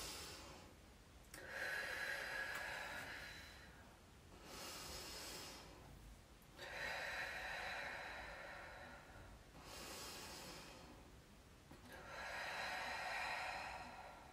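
A woman breathing deeply and audibly, about five long breath sounds in and out with short pauses between them. She is recovering her normal breathing after a 30-second breath hold in a stomach-vacuum exercise.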